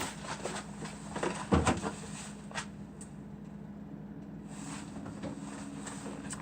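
Light knocks and clatter of food containers being handled in a refrigerator, with one louder thump about a second and a half in, over a steady low hum.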